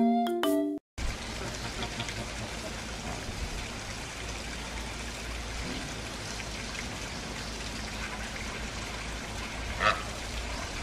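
Xylophone-like music cuts off about a second in. Then comes a steady outdoor hiss of running water with a low rumble. Near the end there is a single short honk from a flamingo.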